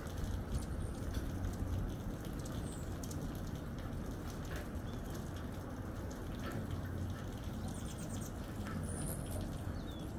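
Hummingbirds giving thin, high chirps and short rapid twittering series around the feeder, over a steady background patter of rain.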